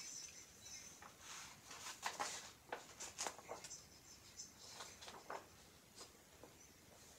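Faint, scattered rustles from a sheet of paper being handled.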